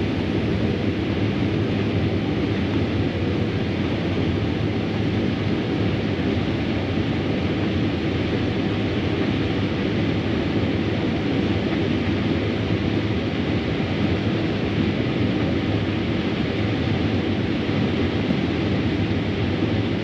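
Combine harvester running steadily while harvesting corn: a constant, unchanging mechanical drone.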